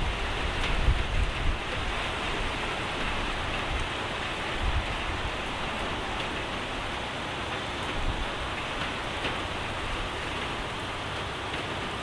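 Steady icy rain falling on wet pavement and puddles, a constant even hiss. Wind buffets the microphone with low rumbles in the first couple of seconds.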